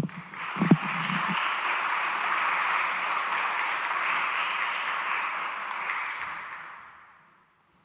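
Audience applauding steadily, then dying away to silence about seven seconds in.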